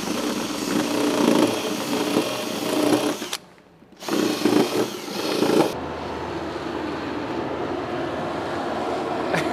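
Cordless drill with a cone cutter boring through the thick plastic wall of a water tank, in two bursts with a short stop about three seconds in. From about halfway a steady background machine hum takes over.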